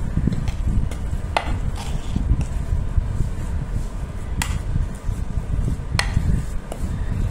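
Steel spoon mixing mashed potato filling in a metal pot, scraping through it and knocking against the pot's side in three sharp clinks. A steady low rumble runs underneath.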